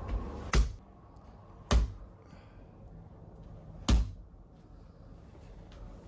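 Three heavy thuds of a chiropractic mallet, the "Russian hammer", striking a patient's back, the second about a second after the first and the third about two seconds later.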